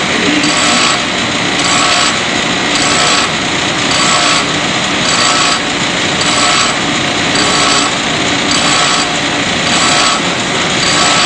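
Grinder grinding steel bar stock into a flattened screwdriver blade, a loud steady grinding whose tone shifts about once a second.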